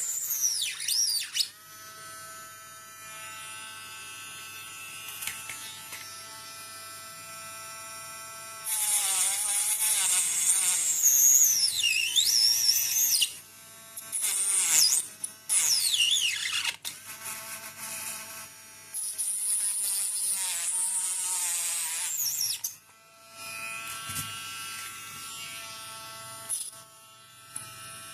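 Mini electric grinder running with a steady whine, broken by several louder, harsher stretches where the disc cuts into the material and its pitch sags and wavers under load.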